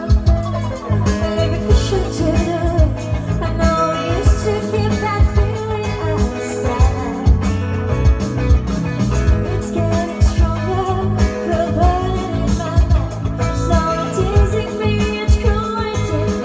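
Live band playing a song: a woman singing lead over electric guitar, keyboard and drums, with a steady drum beat.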